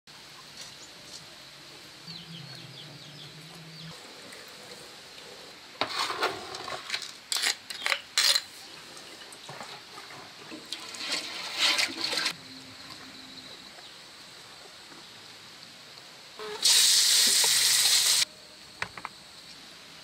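Water splashing and sloshing in several irregular bursts, then a louder steady pour or gush lasting about a second and a half near the end.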